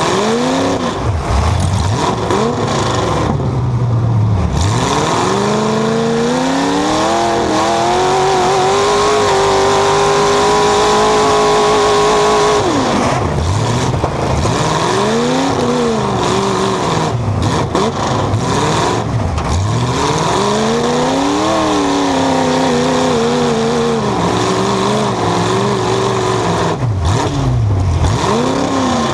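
Chevy truck's LS1 V8 demolition-derby engine, heard from inside the cab through its hood-mounted upright exhaust pipes, revving up and falling back again and again as the truck maneuvers. Near the middle it climbs to one long held high rev that drops off suddenly.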